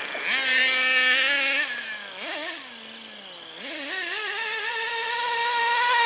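Small nitro engine of a radio-controlled monster truck revving up and down under quick throttle changes. It eases off to a lower, quieter note about two seconds in, then climbs back to a high, steady whine that grows louder as the truck runs at speed.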